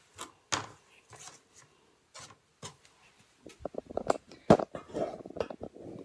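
Scattered plastic clicks and scrapes as a dryer lint screen is handled and cleaned of lint. These grow into a busier run of knocks and rustling in the second half, with one sharp knock about four and a half seconds in.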